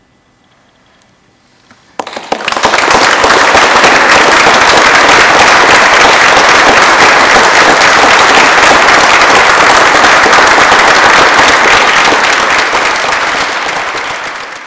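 Audience applause breaking out suddenly about two seconds in: loud, dense, steady clapping that fades away near the end.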